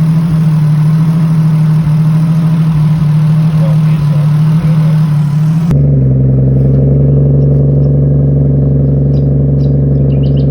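Nissan Skyline R33's straight-piped RB25DET turbocharged straight-six idling steadily with a loud low drone. A little over halfway through, the sound changes abruptly: the hiss above the drone drops away and the pitch settles slightly lower.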